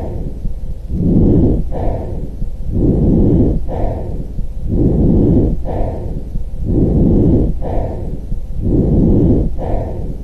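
Recorded breath sounds: about five even breath cycles, one roughly every two seconds, each a low rushing noise with no whistling tone in it.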